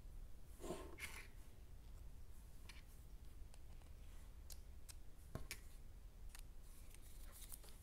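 Faint, scattered clicks and taps of small screws, a hex driver and plastic RC truck parts being handled on a table, with a brief rustle or scrape about a second in and a sharper click about five and a half seconds in.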